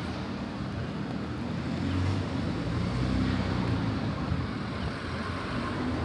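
Steady city traffic noise: a continuous rumble with a low engine hum.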